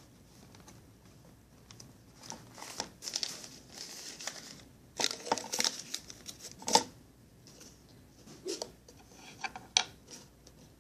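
Paper money and stiff duct-tape items being handled and stuffed into a duct-tape piggy bank: rustling and crinkling, with a few sharp clicks and taps.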